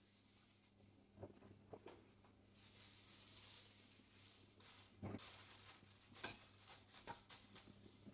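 Near silence: a faint steady low hum with a few soft handling clicks and knocks.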